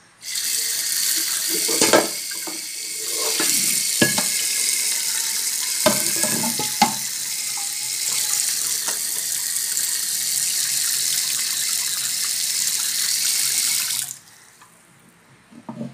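Kitchen tap running hard into a sink while a metal wok is rinsed under it, with a few sharp knocks of the pan against the sink. The water shuts off about fourteen seconds in.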